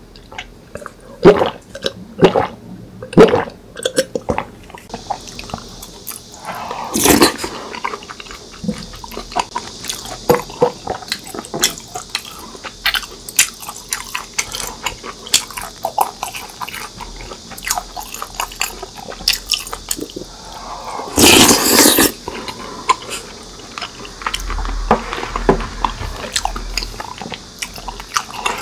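Close-miked eating: a few gulps from a drink bottle at the start, then chewing and biting of tteokbokki in thick spicy sauce. About three quarters of the way through there is a loud rush of noise lasting about a second.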